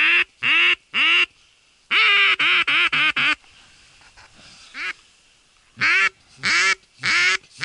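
A hand-held Mankoff duck call blown close up, quacking like a hen duck. There are three quacks, then a quicker run of about six, and after a pause four more.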